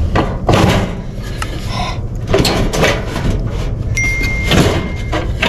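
RV furnace's sheet-metal housing being slid out of its exterior compartment, scraping and rasping several times against the frame.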